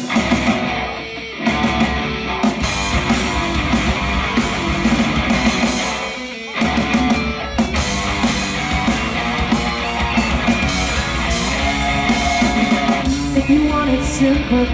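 Rock band playing an instrumental intro, with guitar and drums, before the vocals come in. The music drops out briefly about a second in and again about six seconds in, then comes back in full.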